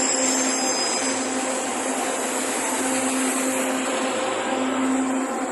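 Passenger train noise up close: a steady rushing rumble with a low hum that comes and goes.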